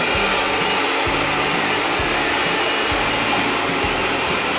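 Countertop blender running steadily, its motor whirring as it blends a jar of powdered horchata mix with water.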